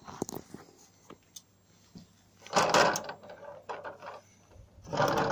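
Plastic dehumidifier water tank being handled, rattling and knocking in two bursts: a short one about halfway through and a longer one near the end.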